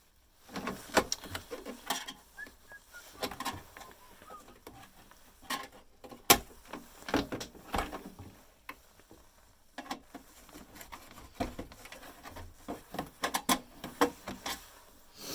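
Hands dismantling a bread maker: irregular clicks, knocks and rattles of its plastic casing and parts, with the sharpest knock about six seconds in.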